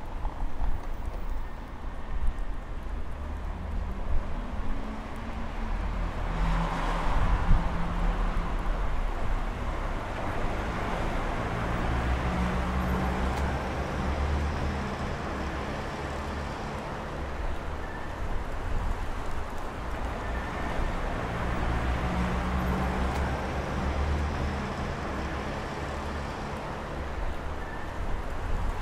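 City street traffic: cars and a bus driving past, a steady low rumble with engine hum that swells and fades three times.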